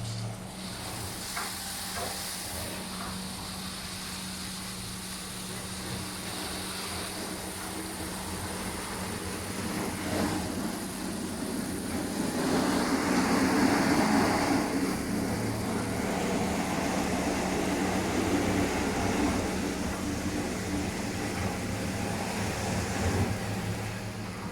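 CB-730 rollover bus and truck washing machine running: a steady electric hum, with a rushing hiss that swells for a few seconds around the middle.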